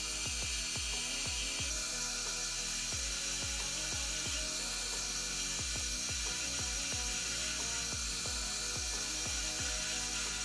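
Background music with a steady bass beat, over the running of a metal lathe drilling a through hole with a twist drill fed from the tailstock.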